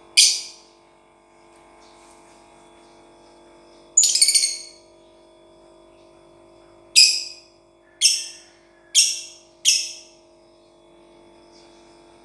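Lovebird giving shrill, high-pitched calls: a single call right at the start, a quick run of chattering notes about four seconds in, then four sharp single calls about a second apart near the end.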